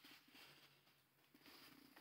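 Near silence: faint plastic rustles and taps of over-ear headphones being handled and folded.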